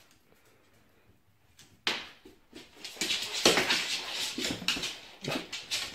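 An Akita playing with a stuffed toy on a hard floor, starting about two seconds in: a busy run of paw scuffles and knocks as the toy is grabbed and dragged about.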